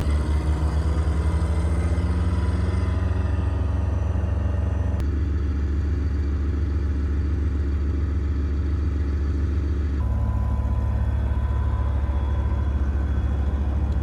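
Heavy armoured vehicle's diesel engine running with a deep, steady rumble, rising in pitch over the first few seconds as it revs up. The sound changes abruptly twice, about five and ten seconds in.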